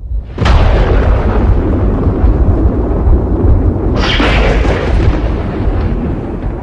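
Thunder: a sudden loud crack about half a second in that rolls on as a long rumble, with a second sharp crack about four seconds in.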